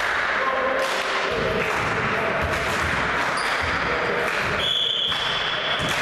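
Indoor volleyball game sound in an echoing sports hall: players' and spectators' voices and a ball thudding on the wooden floor. Near the end a referee's whistle blows once for about a second, the signal that authorises the serve.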